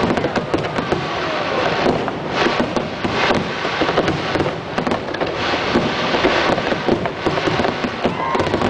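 Fireworks display going off in rapid succession: a dense, unbroken run of bangs and crackles.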